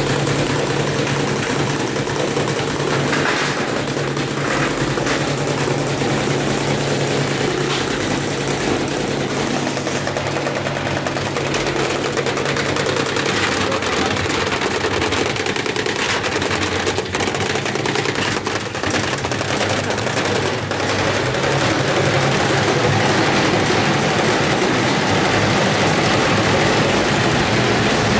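Gorenje WNHEI washing machine running hard with a load of soaking wet clothes: a steady motor hum under a dense, rapid rattling and knocking of the drum and cabinet, a little louder about three-quarters of the way through. This is the sound of a washer shaking itself apart.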